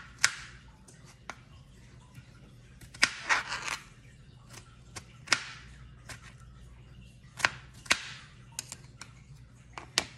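Kitchen knife cutting strawberries into small pieces: irregular sharp taps of the blade striking the cutting board, with a couple of short slicing scrapes.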